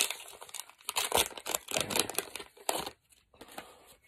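Plastic wrapper of a McDonald's Pokémon card pack being torn open and crinkled in the hands, a run of sharp crackles that stops about three seconds in.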